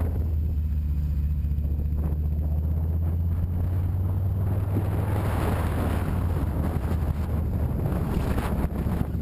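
Motorcycle engine running at a steady cruise, with wind rushing over the microphone that swells about halfway through.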